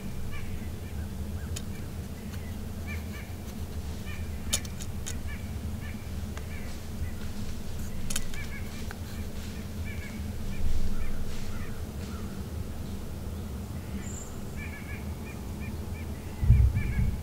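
Birds calling in the distance: short calls repeated throughout over a steady low outdoor rumble, with a few sharp clicks. A couple of heavy low thumps come near the end.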